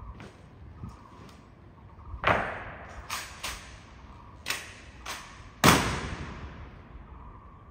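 Honor guard drill impacts: about six sharp, unevenly spaced strikes, each ringing out with an echo, the loudest near the end.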